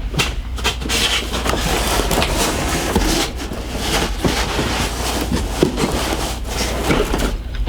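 Coilover packaging being handled and pulled open: continuous rustling and scraping with frequent small clicks and knocks.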